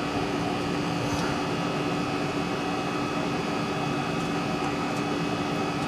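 Engine oil pouring in a steady stream from the oil pan's drain hole into a drain pan, over a constant hum.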